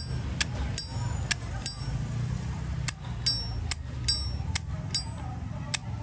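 Zippo windproof lighter's hinged metal lid being flicked open and snapped shut over and over, a sharp metallic click with a brief bright ring about two to three times a second, pausing once near the middle. A steady low hum runs underneath.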